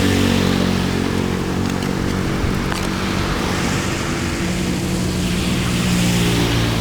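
An engine running steadily and changing pitch about two-thirds of the way through, over a continuous rush of water or rain.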